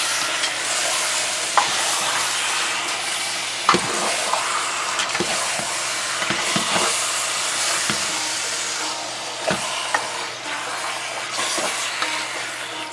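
Pork chunks sizzling in hot oil and curry paste in a large metal pot while a silicone spatula stirs and turns them, with a few light knocks of the spatula against the pot.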